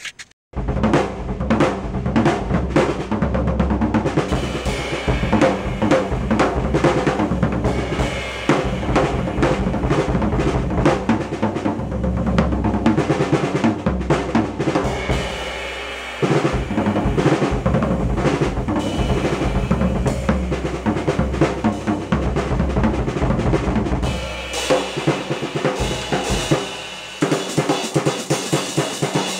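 Drum kit played with sticks: a busy, continuous groove on snare and cymbals, breaking off briefly just past halfway, with the cymbals brighter and more prominent over the last few seconds.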